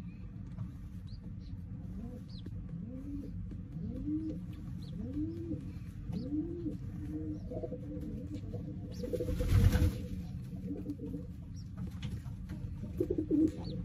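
A domestic pigeon cooing on the nest: a series of low coos, each rising and falling, about one a second, while the squabs it is feeding give faint high peeps. A short rustling burst comes about nine seconds in.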